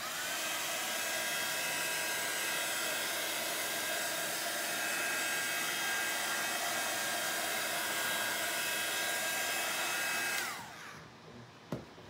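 Handheld hot-air blower switched on over wet acrylic paint. Its fan whine rises to a steady pitch, blows steadily for about ten seconds, then winds down as it is switched off. A sharp click follows near the end.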